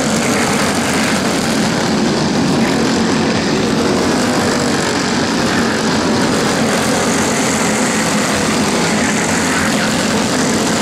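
Racing go-kart engines running on track, a steady, dense engine drone that holds at one level throughout.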